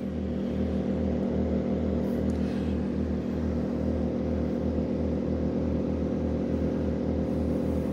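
Dinking DK2300i-M and Harbor Freight Predator inverter generators running together in parallel under a heavy load of about 3,000 watts, near the pair's combined rated output. A steady engine drone with a regular throb of about three pulses a second.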